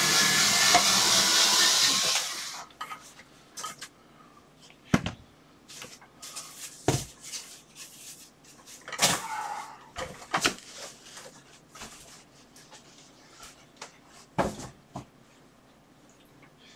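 Jackcat electric scissors running and cutting through a cardboard box, stopping about two seconds in. After that, scattered knocks, taps and scrapes of cardboard being handled.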